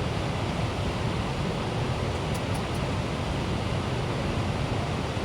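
Steady outdoor rushing noise, heaviest and fluttering in the low end, with three faint high clicks a little past two seconds in.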